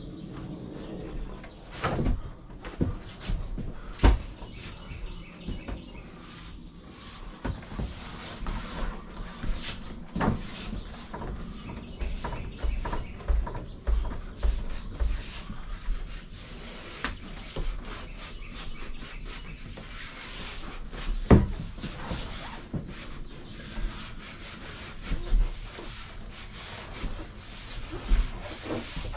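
Hands rubbing and pressing backsplash panels flat against a wall, a steady scuffing broken by occasional knocks and thumps.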